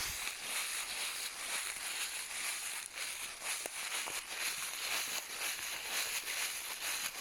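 Footsteps walking through dry fallen autumn leaves: a continuous crunching and rustling underfoot.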